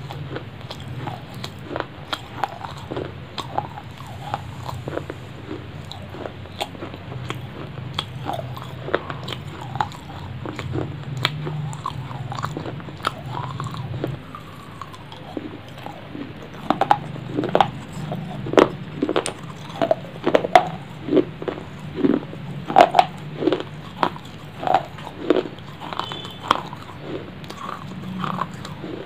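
Close-miked eating: a person biting and chewing right at the microphone, with sharp wet mouth clicks and smacks that come louder and more often from about halfway through.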